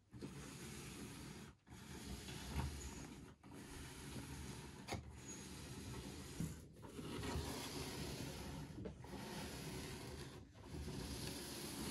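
Braava robot mop running on a floor, a faint steady whir with rubbing. The sound is broken by brief silent gaps every second and a half to two seconds.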